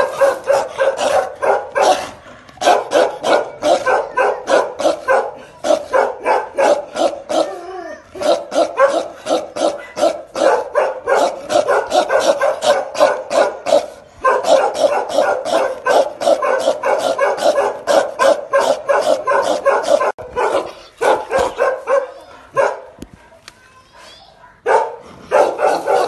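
Bakarwal dogs barking aggressively in rapid volleys, several barks a second, with short pauses between bouts. This is guard-dog aggression aimed at an intruder.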